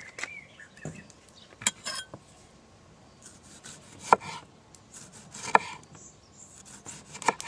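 Chef's knife slicing a tomato on a wooden cutting board: a few separate knocks of the blade meeting the board, a second or more apart, after a short clatter about two seconds in.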